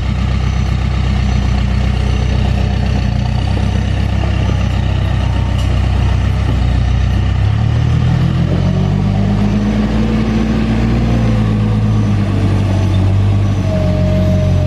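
Diesel engine of a heavy vehicle running steadily, then revving up about halfway through and easing back down near the end.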